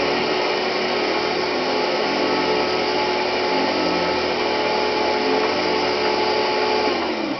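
Eureka-built Eaton's Viking canister vacuum cleaner running with a steady motor whine and airflow rush. Near the end it is switched off and its pitch falls as the motor spins down.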